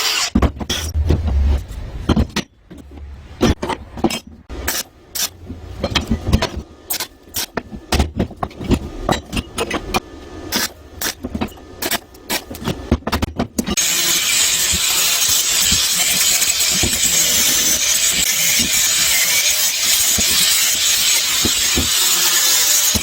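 Irregular knocks and clatter of tool work, then about fourteen seconds in a steady mechanical whir with a strong high hiss takes over.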